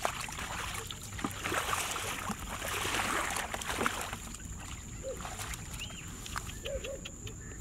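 Plastic bucket scooping muddy water out of a shallow pool and throwing it aside, with repeated splashing and sloshing. The pool is being bailed out to drain it for catching fish.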